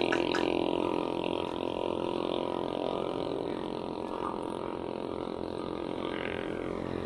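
A motor vehicle's engine running nearby, slowly fading.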